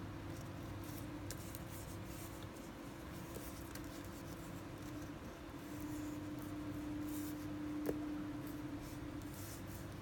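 Faint scratchy rustling of fishing line and fingertips rubbing on paper while a knot is worked, over a steady hum, with one sharp tick about eight seconds in.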